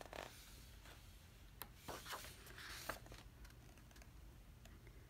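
Glossy pages of an album photobook being turned by hand: faint paper rustling and sliding, loudest about two to three seconds in.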